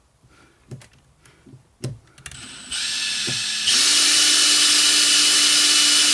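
Makita electric drill with a small bit: after a few light handling clicks, the motor starts about two seconds in, steps up in speed twice and then runs steadily at full speed, pre-drilling a pilot hole in particle board.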